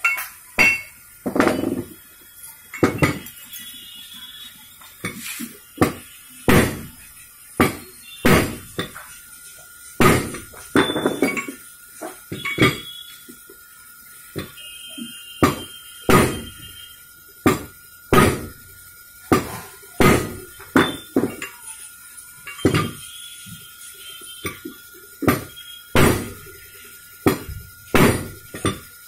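A heavy steel tool striking a Kawasaki 175 motorcycle crankshaft, set on a pipe stand, in sharp metal-on-metal blows, about one a second at an uneven pace, each ringing briefly. It is driving the crank halves and big-end pin together by hand instead of with a press.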